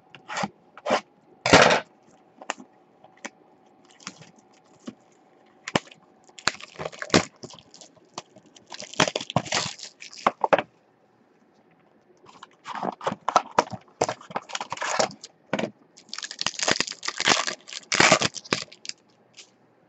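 Clear plastic wrapping being cut, torn off a trading-card box and crumpled by hand: two long spells of dense crinkling and crackling, with sharp clicks and taps from handling the box early on.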